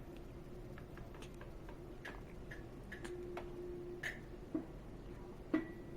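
A premature baby hiccuping: a few short, sudden hics in the second half, the loudest near the end. Faint clicks and a steady faint hum run beneath.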